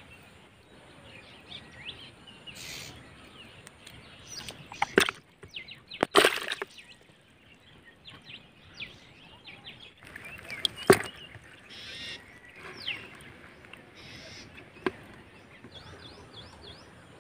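Small birds chirping in short, repeated notes, with a few sharp clicks and knocks; the loudest come about six and eleven seconds in.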